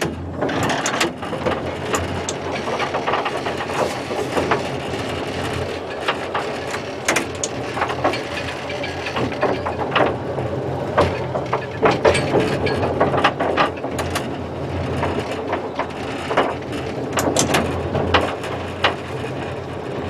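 Heritage electric railway vehicle running slowly on its track: a steady low hum with many irregular clicks and clanks.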